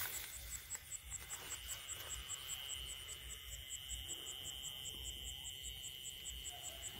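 Night insects such as crickets: a high chirp pulsing about four times a second, with a steady high trill that grows stronger about one and a half seconds in.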